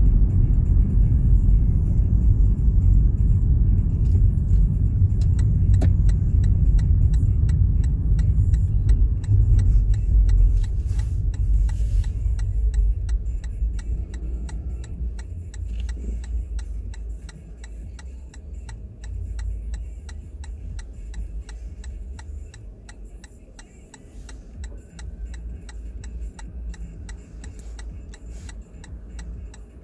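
Car road and engine rumble that dies down after about ten seconds as the car slows, with a turn-signal indicator ticking steadily through it.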